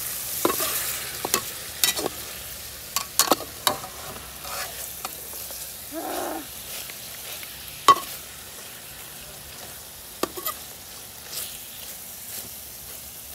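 Chunks of beef sizzling in a large stainless steel wok as a metal wok spatula stirs and turns them, with sharp clacks and scrapes of the spatula against the pan; the loudest clack comes about eight seconds in. The meat is browning as the sauce cooks down.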